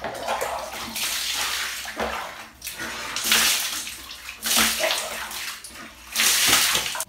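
Water scooped from a plastic basin with a hand dipper and poured out in splashing gushes, about five pours a second or so apart, as in a dipper bath.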